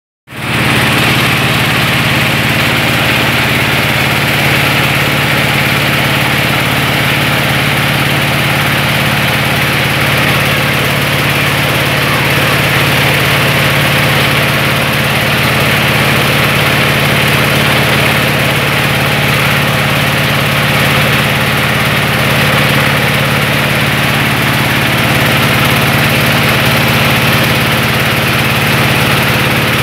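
Mobile rice-milling machine running steadily: a constant engine hum with a broad rushing hiss over it, with no change in speed.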